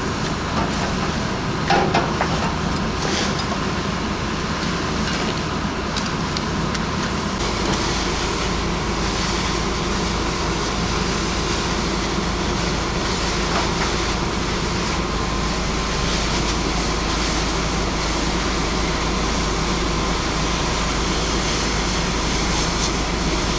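Pierce Arrow XT fire engine running steadily at the scene, its engine and pump making a constant rumble and hiss, with a knock about two seconds in.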